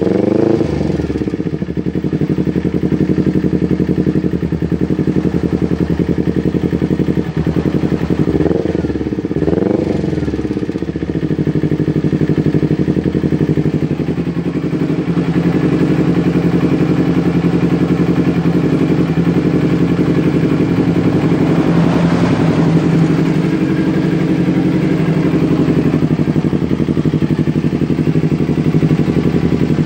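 Kawasaki Ninja sport bike's engine running through an aftermarket Akrapovič-branded slip-on muffler. Two quick throttle blips about eight and ten seconds in rise and fall in pitch, then it settles into a steady idle.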